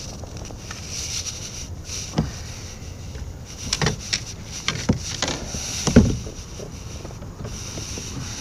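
Knocks and clatters against a fishing kayak as a small bass is netted and brought aboard, a handful of sharp knocks between about two and six seconds in, the loudest near six seconds. Low wind rumble on the microphone runs underneath.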